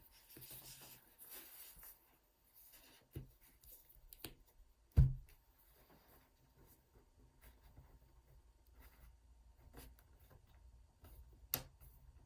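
Scraping and rubbing at the seam of an MSI GP66 Leopard laptop's case as its bottom cover is pried off, with a few light clicks from clips popping loose. A single dull thump about five seconds in is the loudest sound.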